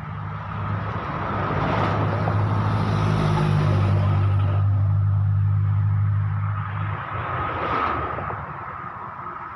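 Pickup truck passing by on the road: its low engine hum and tyre noise build over a couple of seconds, drop slightly in pitch as it goes past, then fade. A shorter swell of another passing vehicle comes near the end.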